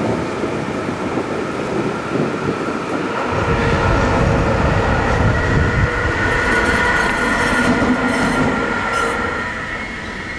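Red electric locomotive running light past, with no wagons behind it. A steady whine of several pitches rides over the rumble of its wheels on the rails, and the rumble grows heavier about three seconds in.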